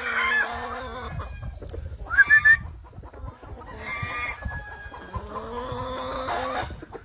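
Gamefowl roosters calling, with short clucking calls about two seconds in and again near four seconds, and a longer drawn-out crow in the second half.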